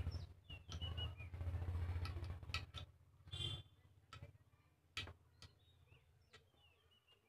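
Small birds chirping in the background, with sharp clicks and taps as the rubber EHT anode cap and its wire are handled against the CRT picture tube. A low buzzing hum runs through the first three seconds, then stops.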